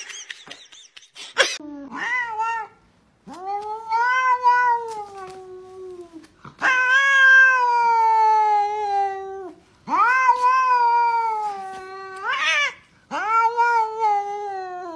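A domestic cat yowling: a short meow, then four long, drawn-out calls of two to three seconds each with short pauses between, each sliding gently down in pitch.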